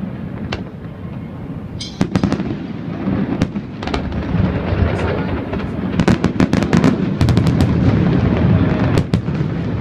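Fireworks display: a rapid run of sharp cracks and pops over a continuous low rumble of booming shells. The crackling is thickest just past the middle and comes again shortly before the end.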